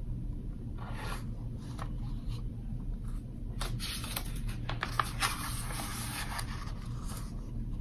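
A page of a hardcover picture book being turned and handled: paper rustling and rubbing, with a cluster of rustles in the middle, over a steady low room hum.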